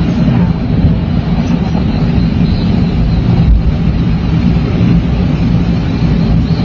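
Storm wind rushing and buffeting the microphone: a loud, steady low rumble with a hiss above it.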